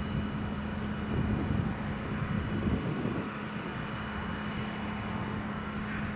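Cessna F172L Skyhawk's piston engine and propeller giving a steady drone during its takeoff roll.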